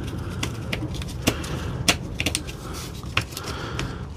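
Irregular sharp clicks and taps of plastic parts as the trigger switch assembly of a DeWalt DCF899 impact wrench is handled and pressed into its plastic housing.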